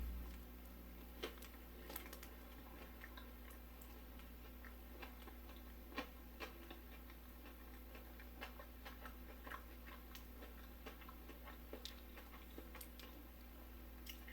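A person chewing a mouthful of burger: faint, irregular soft clicks and smacks over a steady low hum.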